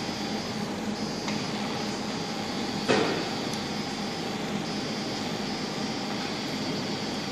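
Steady hum and hiss of a fiber laser marking machine running idle while its red aiming beam is set, with one sharp knock about three seconds in.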